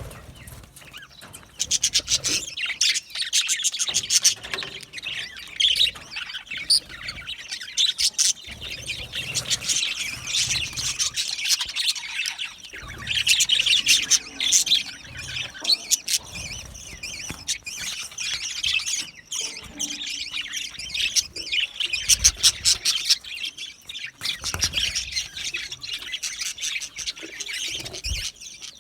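Flock of budgerigars chattering: dense, rapid chirps and warbles, with occasional squawks.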